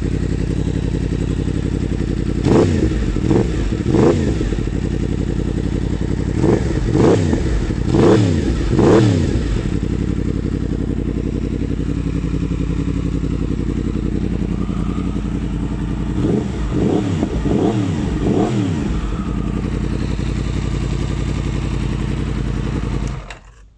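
2017 Yamaha MT-10's crossplane inline-four running through an Akrapovic exhaust: steady idle broken by a string of quick throttle blips in the first ten seconds, several seconds of idle, then a few more short blips. The sound cuts off near the end.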